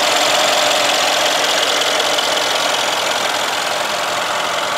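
Brabus 850's 6-litre twin-turbo V8 idling steadily, heard close over the open engine bay.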